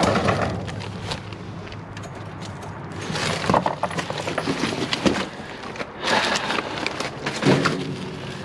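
Scrap metal and wire being handled and sorted by hand: irregular clinks, rattles and rustling, coming in bursts.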